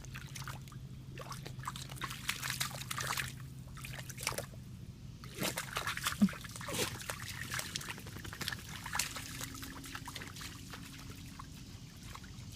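Bullmastiff puppy sloshing and splashing in a shallow puddle, with irregular small splashes and trickles of water.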